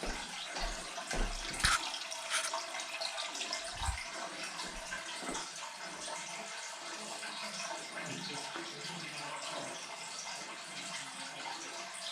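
Water running steadily, as from a tap into a sink, with a couple of sharp clicks about two seconds in.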